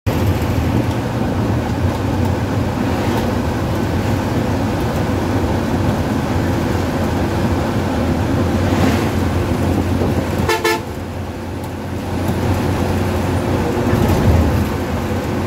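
Steady engine and road noise inside the cabin of a moving intercity bus, with one short horn blast about two-thirds of the way through.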